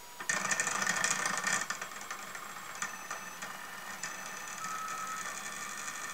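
Small Snap Circuits toy motor spinning its plastic fan blade: a whirring buzz that starts about a third of a second in, is loudest for the first second or so, then settles to a steadier, lower run.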